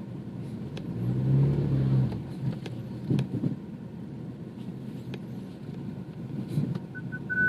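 Inside a BMW 428i rolling slowly down a slope at full steering lock: a low, steady running sound with a few faint clicks, and none of the front-underbody clunking it had before, a sign that the fault is cured. Near the end, parking-sensor beeps start and quicken toward a continuous tone.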